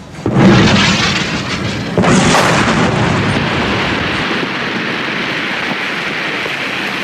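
Two loud explosions, the first about a third of a second in and the second about two seconds in, each hitting sharply and followed by a long rushing roar that dies away slowly.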